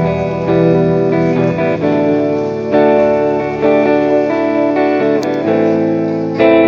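Instrumental background music carried by a plucked-string melody, its notes changing about once or twice a second.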